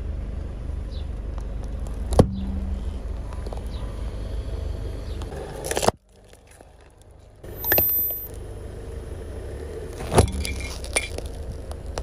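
A car tyre rolls slowly over objects on asphalt and crushes them, with the car's engine idling low underneath. There is a sharp crack about two seconds in as carrots snap, a rough squashing burst a little after the middle as a yogurt pack bursts, and a few more cracks near the end.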